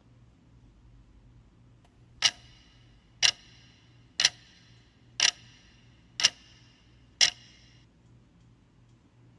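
Six sharp ticks, evenly spaced about a second apart, each with a brief ringing tail, over a faint low hum.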